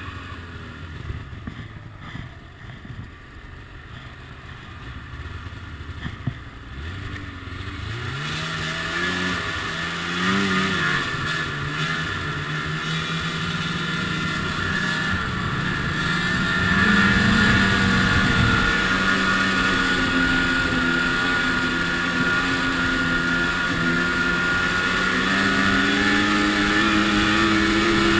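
Ski-Doo MXZ snowmobile's two-stroke engine running at low revs, then rising in pitch as the sled accelerates about eight seconds in. From about seventeen seconds it holds a louder, steady speed.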